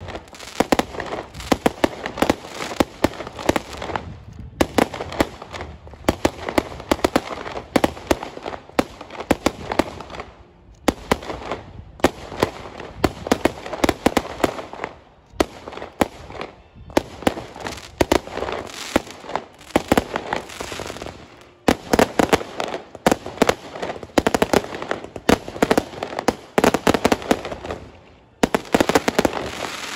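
Aerial fireworks bursting overhead: rapid runs of sharp bangs and crackles, in volleys of several seconds with brief lulls between.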